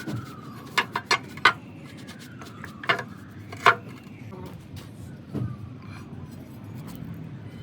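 A handful of sharp metallic clicks and clinks at uneven intervals, with a faint wailing tone that keeps sliding down in pitch behind them.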